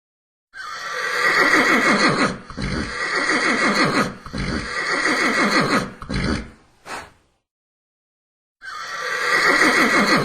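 Horse whinnying: a long, shaking neigh in three drawn-out phrases lasting about six seconds, a short snort-like burst just after, then a second neigh starting after a pause of over a second near the end.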